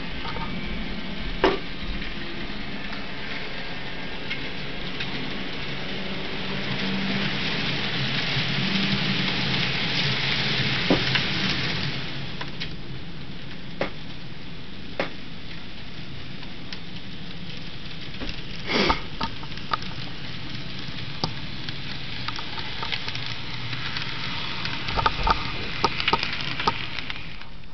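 N scale model train running on the layout: a steady hiss from the small locomotive and its wheels on the track, swelling in the middle, with scattered sharp clicks as the wheels cross rail joints and turnouts and a quick run of clicks near the end as the locomotive passes close by.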